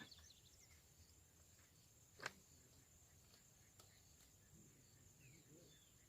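Near silence with a faint steady high-pitched hum, a single sharp click about two seconds in, and faint low murmuring and a few short falling chirps near the end.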